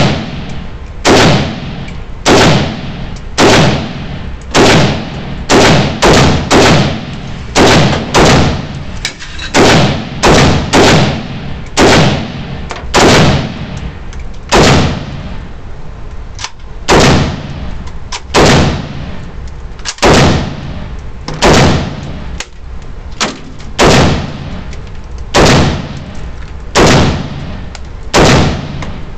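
Romanian WASR-10 AK-pattern rifle firing steel-cased Silver Bear 7.62×39 rounds in steady semi-automatic shots, about one a second with the odd quicker pair. Each shot is a sharp crack with a ringing tail.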